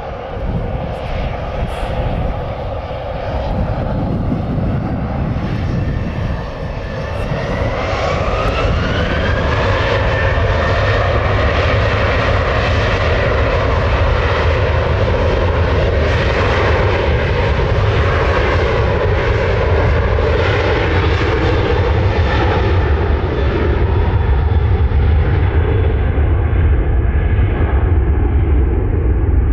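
Jet airliner's engines spooling up to take-off thrust: a whine rises in pitch about a quarter of the way in and then holds steady over a loud, continuous low rumble that grows louder toward the end.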